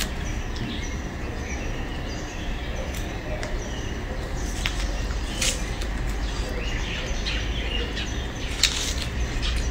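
Mandarin orange being peeled by hand, the rind giving a few sharp crackles, over a steady low hum with faint short chirps.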